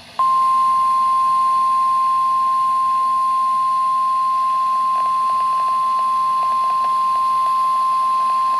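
Emergency Alert System attention tone of the kind sent over NOAA Weather Radio: a single steady, high-pitched tone held without a break. It announces that a severe thunderstorm warning message follows.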